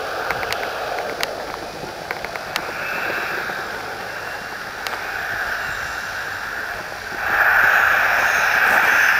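Wind blowing across an outdoor camcorder microphone, a steady rushing noise that grows much louder about seven seconds in. A few light clicks of the camera being handled come in the first few seconds.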